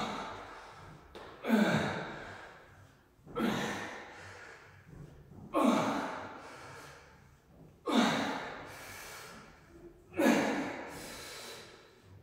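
A man breathing out hard and partly voiced, about once every two seconds, with the effort of each rep of dumbbell goblet squats. Each breath starts sharply and trails off.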